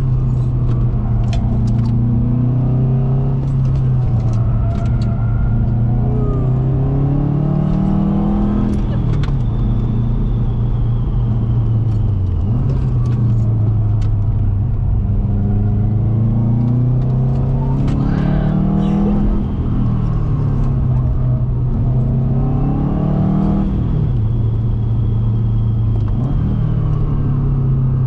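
2006 Subaru WRX's turbocharged four-cylinder engine under hard driving, its revs climbing and falling again and again with gear changes and corners. It briefly drops off twice, about twelve and nineteen seconds in.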